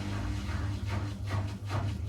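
Miele W1 Active WCA 030 washing machine's drum turning, with a low motor hum; its steady motor tone fades and about a second in a rapid rhythmic swishing of laundry starts, about four to five strokes a second.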